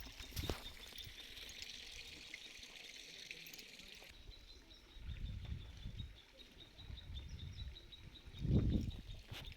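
Rain forest ambience: a steady high hiss of insects and water, with a rapid, regular high chirp starting about halfway through. Low rumbles come and go in the second half, the loudest near the end.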